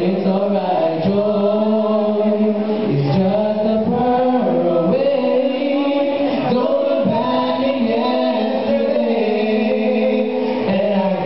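Male vocal duet singing a slow song in harmony into microphones, with long held notes.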